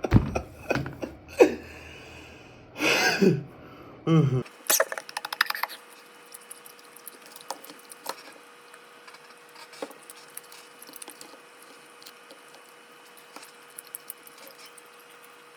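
A person eating close to the microphone: chewing and mouth clicks, with a short noisy breath or throat sound about three seconds in. From about four and a half seconds in only faint clicks remain over a steady faint hum.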